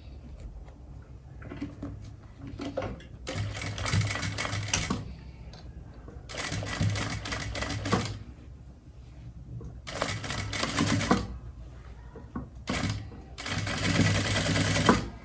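Electric sewing machine stitching a zipper into a trouser front, run in short spells: about five runs of a second or two each, with pauses in between.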